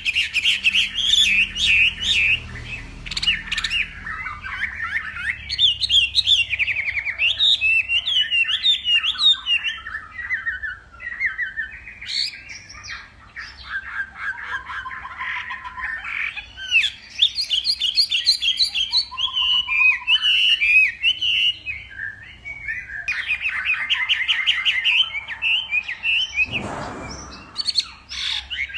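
Chinese hwamei (melodious laughingthrush) singing a long, varied song of whistled phrases, rapid repeated notes and trills, with hardly a pause; a short rustle near the end.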